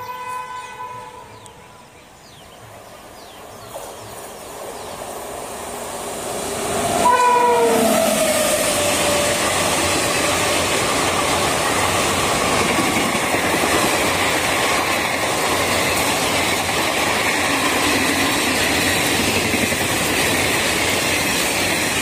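Indian Railways WAP7 electric locomotive's air horn ends a long honk, then the train approaches at speed. About seven seconds in, a short horn blast drops in pitch as the locomotive passes. Then comes the steady rush and clatter of the passenger coaches' wheels running by at speed.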